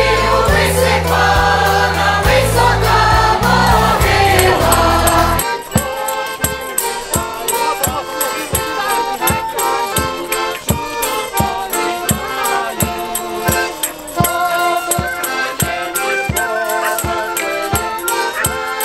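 A carol sung by a group over a heavy, sustained bass accompaniment, then, after an abrupt change about five seconds in, a Ukrainian folk band of accordion, violin and drum (troisti muzyky) playing a lively tune with a steady drumbeat about twice a second.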